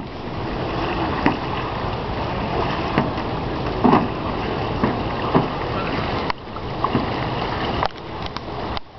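A canoe being paddled: paddle blades dipping and splashing in the water every second or two, over a steady rushing background noise.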